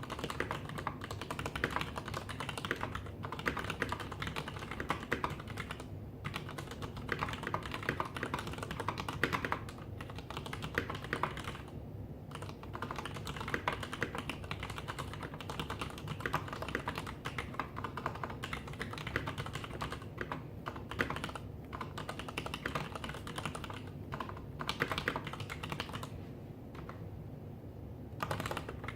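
Typing on a Leopold FC750R mechanical keyboard with Cherry MX Black linear switches: fast, continuous keystrokes clacking as keys bottom out, with brief pauses now and then, the longest near the end.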